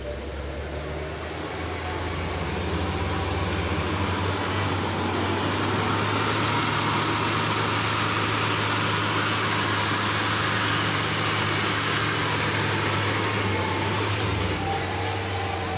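A vehicle engine running hard under load, which builds over the first few seconds, holds at a steady high pitch, then eases off near the end; typical of a vehicle trying to pull out of deep mud.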